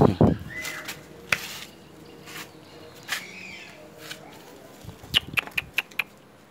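A bull's hooves knocking and clicking on a concrete yard as it is led on a rope. There is a heavy thump at the start, and a quick run of about five sharp clicks about five seconds in.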